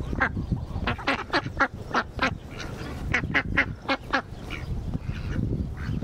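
Domestic ducks quacking: a run of short quacks, a brief pause, then a second run.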